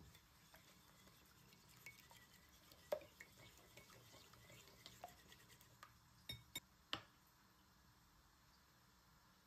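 Small wire whisk beating an egg mixture in a ceramic bowl: faint scraping and light clinks of metal against the bowl, with a few sharper clinks toward the end.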